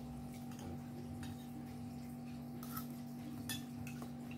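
Metal spoon and fork clicking and scraping against a ceramic plate a few times, over a steady hum.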